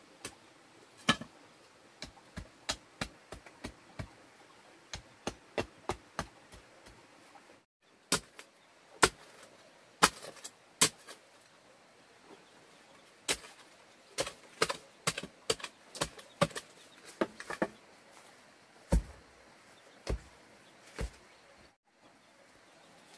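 A hoe chopping into hard, stony dirt again and again, in uneven runs of a few sharp strikes a second with short pauses between.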